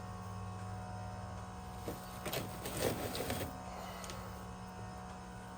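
A steady low hum, with a few brief rustling and knocking handling sounds in the middle.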